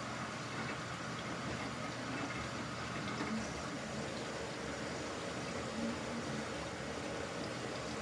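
Samsung washing machine running mid-cycle: a steady rush of water churning inside the drum.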